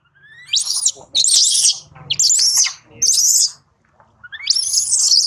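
Infant macaque screaming in distress: five shrill, high-pitched screams that arch up and down in pitch, each about half a second long, the last one near the end.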